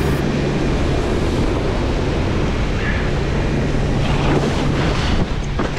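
Wind buffeting a point-of-view camera's microphone and water rushing and spraying under a wakeboard towed at speed behind a boat, with a steady low hum underneath.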